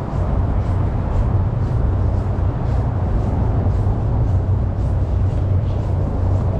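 Storm wind buffeting a body-worn action camera's microphone in a steady low rumble. Faint footsteps crunch in snow about twice a second at a walking pace.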